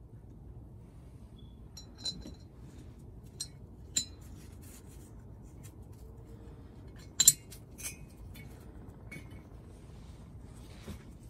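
Sharp metallic clinks of bolts against a steel three-bolt exhaust flange adapter as it is handled on the catalytic converter outlet: about seven separate clinks, the loudest a quick double clink about seven seconds in.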